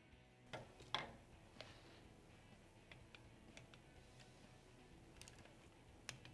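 Torque wrench clicking and ratcheting on the engine's crankcase bolts as they are tightened: a few sharp clicks, the loudest about a second in, then lighter scattered ticks.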